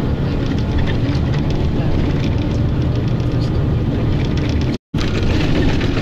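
Steady low rumble of a vehicle in motion, heard from inside it. The sound cuts out completely for a split second a little before the end.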